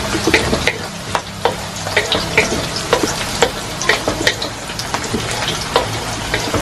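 Sliced onions sizzling in hot oil in a metal wok, stirred with a wooden spatula that scrapes and taps against the pan about two or three times a second.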